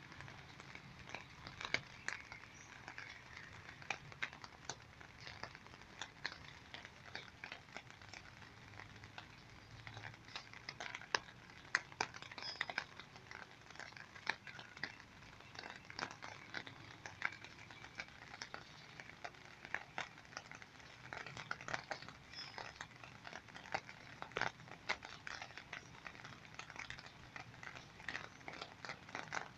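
Rain falling, with many drops ticking irregularly close by over a steady hiss.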